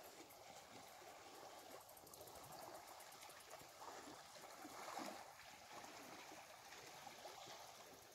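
Faint, steady sound of lake water washing against the rocky shore by a dam, with a slightly louder swell about five seconds in.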